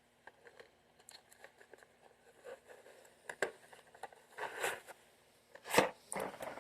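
Handling noises from small objects being picked up and moved: soft rustles and scrapes with a few sharp clicks, the loudest near the end.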